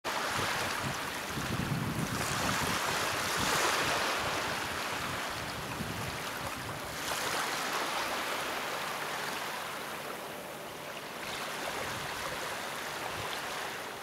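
Small waves of the White Sea washing up onto a sandy beach, the wash swelling and easing every few seconds.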